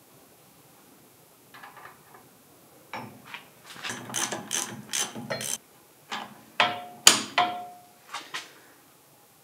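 Ratchet wrench clicking in quick bursts while tightening the nut on a hydraulic cylinder's piston rod, followed by a few sharp metallic clinks about seven seconds in.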